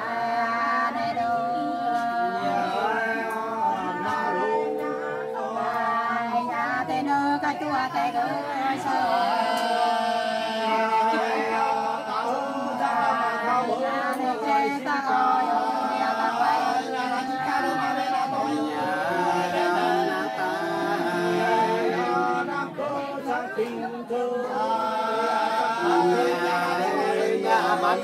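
Nùng women singing hát sli, an unaccompanied folk love song, in long held notes that slide in pitch.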